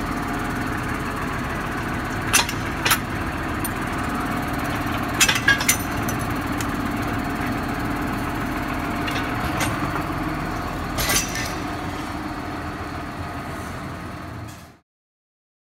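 Tractor diesel engine running steadily, with a few sharp knocks about two and a half, three, five to six and eleven seconds in; the sound cuts off abruptly near the end.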